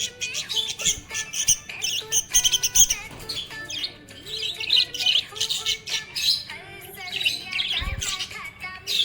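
Budgerigars chirping and warbling in a fast, busy stream of short chirps, with a brief low thump near the end.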